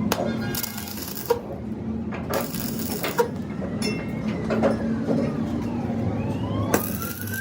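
Truck repair workshop sounds: scattered metal clinks and knocks, with three short bursts of hiss. A faint wailing tone falls slowly in pitch over about three seconds and then rises again near the end.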